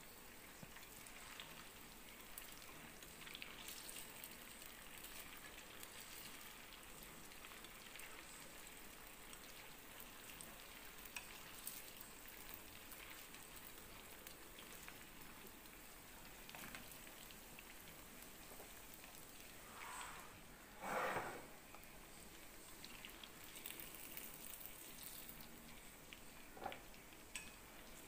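Beef meatballs frying in oil, browning: a faint, steady sizzle with scattered crackles. A short louder noise comes about three-quarters of the way through, and a brief click near the end.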